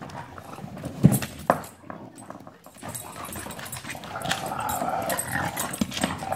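English bulldog making play noises for a couple of seconds near the end. Two sharp knocks about a second in.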